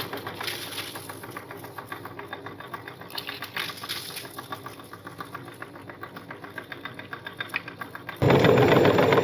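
Electric meat grinder running, its motor making a fast, even clicking rhythm; it turns abruptly much louder about 8 seconds in.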